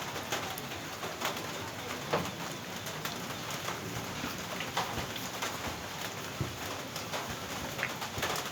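A bird cooing, amid a steady hiss and scattered short clicks.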